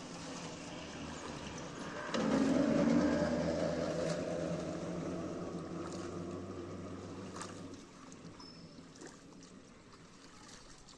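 A motor engine drone that swells suddenly about two seconds in, then fades away and stops about eight seconds in.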